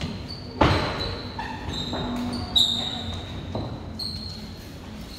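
Badminton rackets striking a shuttlecock in a rally, sharp smacks with the loudest about half a second and two and a half seconds in. High short squeaks of players' shoes on the court floor come between the strokes.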